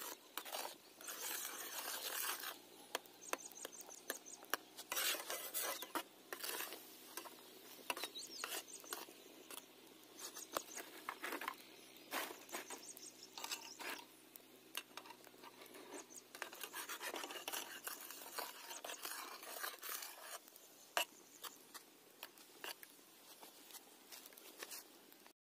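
Bar soap boiling in water in an iron kadai over a wood fire: a steady run of small pops and crackles from bursting bubbles and burning wood, with a metal spatula stirring in the pan at the start.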